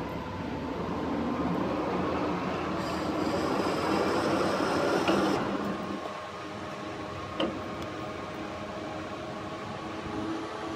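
Metal lathe running and cutting a thread in a C45 steel bar, a steady machine hum with gear whine. A high, thin tone sounds from about three to five seconds in. About six seconds in the machine gets a little quieter, and a single click follows.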